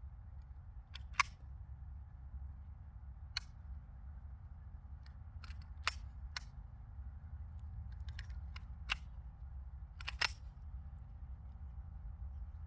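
Handgun shots fired one at a time at irregular spacing, each a short sharp crack, with the loudest about a second in and again near six, nine and ten seconds, and fainter pops between. A steady low wind rumble runs underneath.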